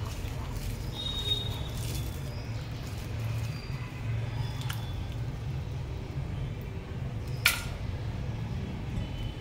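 Soft splashing and squelching as a hand squeezes soaked chirata stems in water in a glass bowl, over a steady low hum. One sharp clink comes near the end as the wet herbs are put into a steel pot.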